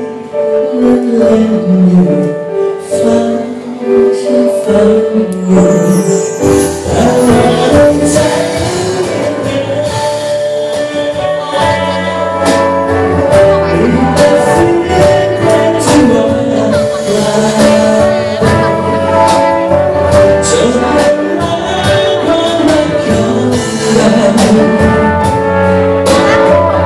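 A man singing a song with a live band of acoustic guitar, keyboard and trumpet. The band fills out with bass and percussion about six seconds in.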